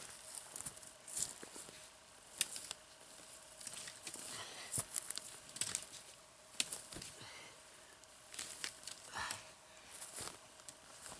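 Footsteps crunching through dry grass and brush, then irregular rustling, crackling and scraping as a downed bull elk's head and antlers are grabbed, lifted and moved in the dry vegetation.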